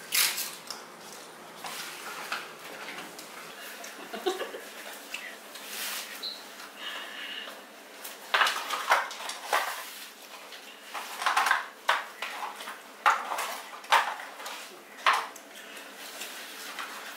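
Food packaging handled at a table: cardboard nugget boxes and plastic dipping-sauce cups being picked up, opened and set down, in short irregular clicks and crinkles that come thicker and louder in the second half.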